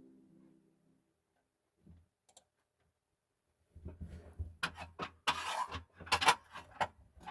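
A held musical tone fades out within the first second. After a few seconds of quiet comes a run of rubbing, scraping and clicks, with low bumps, as from a hand handling the phone close to its microphone.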